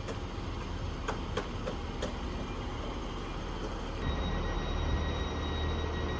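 Class 158 diesel multiple unit running through the station with a steady low rumble from its underfloor diesel engines. About four seconds in, a steady high whine joins it.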